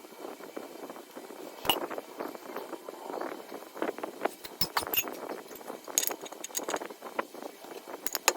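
Metal tools and engine parts clinking and knocking as a Lambretta J125 scooter engine is taken apart: scattered sharp clinks, several close together in the middle and two near the end.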